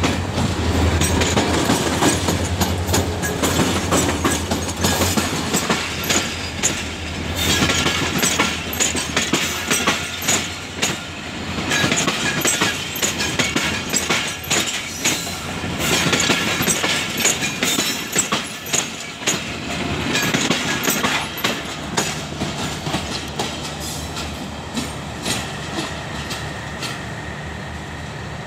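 A Pakistan Railways GMU-30 diesel-electric locomotive runs close past with a low engine hum, then its passenger coaches roll by with a dense clickety-clack of wheels over rail joints and points. The sound dies down in the last few seconds as the train moves away.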